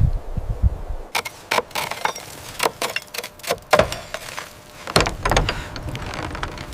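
An irregular clatter of sharp knocks and clicks, some close together and some spaced out, with a heavier knock about five seconds in.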